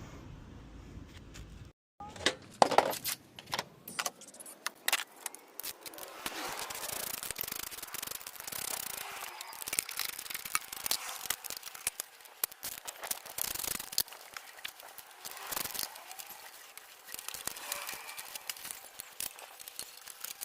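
Hand tools and loose metal engine parts clinking and rattling during an engine teardown, with many sharp irregular knocks and clicks. They begin after a short break in the sound about two seconds in.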